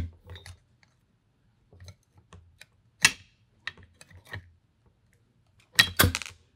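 Clicks and knocks of an FX Maverick PCP air rifle's action and metal chassis being handled and seated together. There is a sharp clack about three seconds in and a louder cluster of knocks near the end, with light ticks between.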